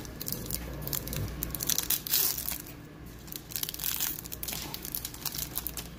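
Foil wrapper of a 2021 Bowman Baseball card pack being torn open and crinkled in gloved hands: a run of sharp rustles and crackles, loudest about two seconds in.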